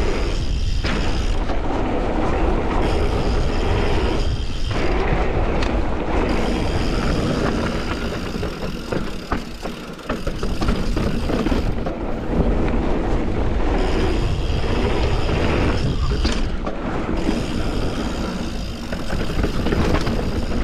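Steady rushing wind noise on the microphone with rolling tyre noise, as from riding a mountain bike, easing off briefly a few times.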